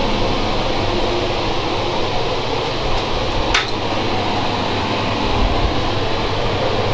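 Spray booth ventilation fans running with a steady, even rush of air, with one brief sharp sound about three and a half seconds in.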